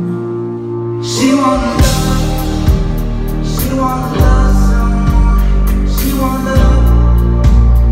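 Live band playing a song with a singer. The music builds: sharp hits come in about a second and a half in, and the low end grows much heavier about four seconds in.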